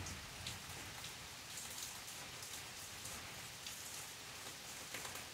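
Steady rain falling on grass, shrubs and pavement: a continuous hiss with scattered louder drops ticking close by.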